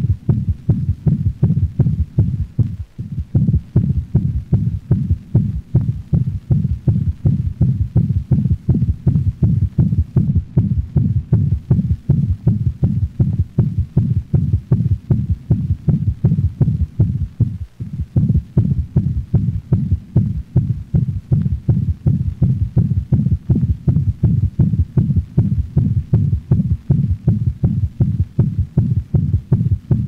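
Stethoscope recording of a dog's heart in failure: a fast, regular beat carrying the loud murmur of mitral insufficiency, with an intensified third heart sound giving a low thud after each murmur.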